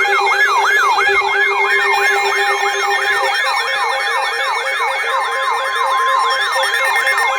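Electronic alert siren wailing up and down quickly, about three sweeps a second, layered over steady alarm tones; one tone drops out about three seconds in and another steady tone joins about five seconds in. It is the alert sounding for a severe thunderstorm warning.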